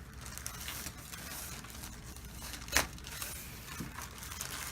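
A single sharp crack about three seconds in, from a spinal joint popping under a chiropractic manipulation, over faint handling noise.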